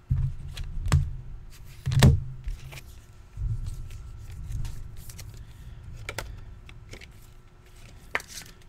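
Handling noise on a tabletop: a few knocks and thumps with a low rumble, the loudest about two seconds in and lighter ones near six and eight seconds.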